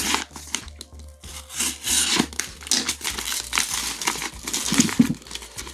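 Kraft paper mailer envelope being torn open by hand at its sealed top flap, the paper crinkling and tearing in irregular bursts.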